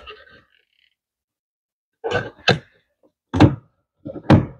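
A plastic window switch tray being pressed and knocked into a car's door trim panel: four short thunks over about two seconds, the last two the loudest, as its clips seat.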